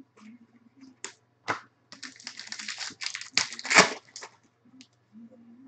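A baseball card pack's wrapper being torn open and crinkled in the hands: a few sharp clicks, then a dense crackle from about two seconds in that is loudest near four seconds and stops soon after.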